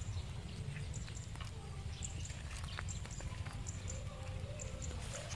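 Outdoor field ambience: a steady low rumble of wind on the microphone, with short, faint, high chirps scattered throughout.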